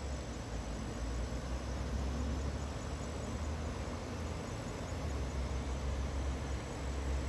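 Steady outdoor background noise with a low, fluctuating rumble underneath.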